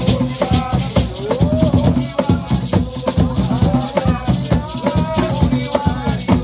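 Garifuna hand drums played in a fast, dense rhythm, with a pair of gourd shakers (sisira) rattling along and a voice singing over them.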